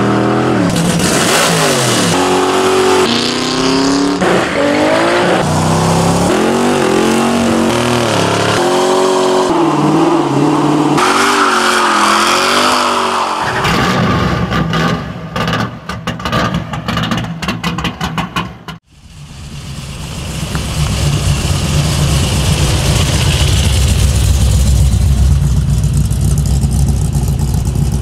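V8 muscle car engines revving and accelerating hard, pitch rising and falling through gear changes for the first dozen seconds. Then a stretch of rapid popping, a brief break, and a deep low rumble that grows louder.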